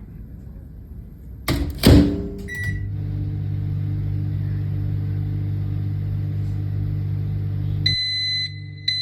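Microwave oven starting up: a couple of clicks and a short button beep, then a steady low hum while it heats for about five seconds. Near the end come the repeated beeps that signal the cycle is done.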